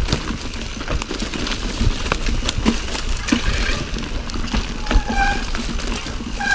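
Mountain bike clattering over rough trail: a constant run of irregular knocks and rattles over tyre and wind noise, with a brief high squeal about five seconds in.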